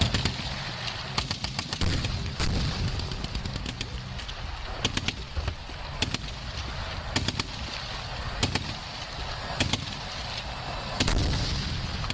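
Gunfire on a tank live-fire range: sharp shots at irregular intervals over a low engine rumble, with a heavier blast about eleven seconds in.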